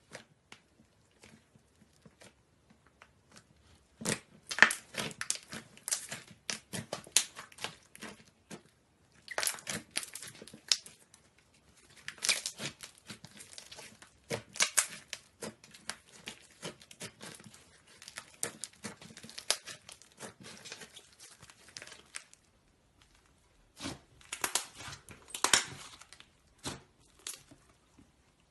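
Slime being squeezed and stretched by hand, making dense bursts of crackling, popping clicks. It starts about four seconds in, pauses briefly about three-quarters of the way through, then picks up again.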